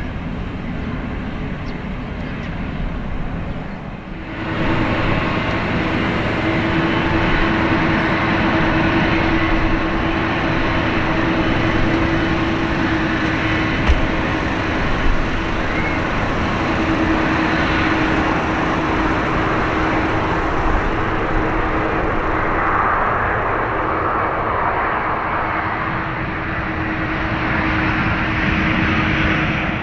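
Twin-engine jet airliner's engines running as it moves along the runway: a steady loud noise with a held droning tone, stepping up in loudness about four seconds in.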